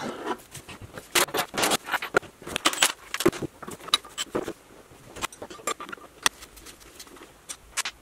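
Scattered, irregular metallic clicks and clinks of a socket and cordless tool being handled and set against the engine mount's bolts.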